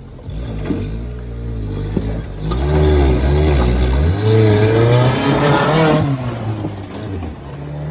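An off-road 4x4's engine revving up and down as it drives through a deep water crossing. From about two and a half seconds in to about six seconds, a loud rush of churned water joins the engine.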